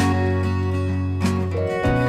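Background music: strummed acoustic guitar with sustained chords.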